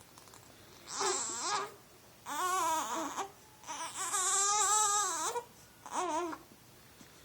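A small child crying and whining in four bursts with a high, wavering pitch; the third cry, in the middle, is the longest.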